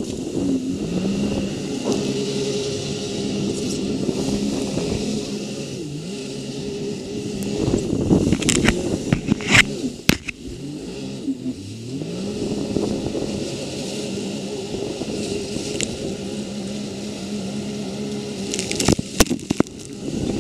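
Sea-Doo personal watercraft engine running under way, its pitch rising and falling with the throttle. About eight to ten seconds in come loud splashing and knocking spikes, the engine drops away briefly and then climbs again; more splashes near the end.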